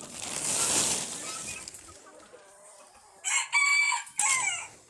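A rooster crowing once, a cock-a-doodle-doo of about a second and a half, starting a little after three seconds in, preceded by a short burst of rustling noise at the start.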